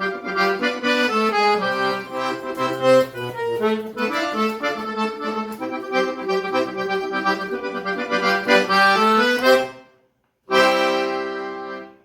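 Accordion playing an instrumental melody over a bass line, breaking off just before the end, then one final sustained chord that fades away.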